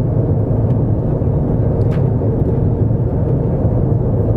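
Jet airliner cabin noise at cruise speed: a steady, loud, low rumble of engines and airflow, heard from inside the passenger cabin.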